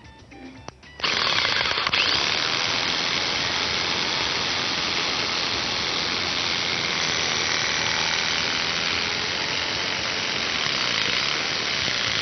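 Electric jigsaw switching on about a second in and cutting steadily through a pine slat, with an even, continuous noise of motor and reciprocating blade biting the wood.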